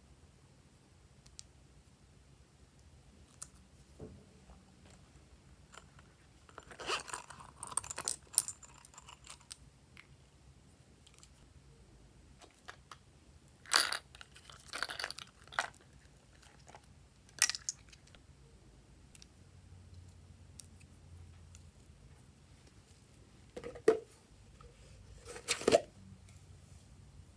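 Slime being worked by hand: scattered sticky crackles, clicks and squishes in three clusters, about seven, fourteen and twenty-five seconds in, with quiet between.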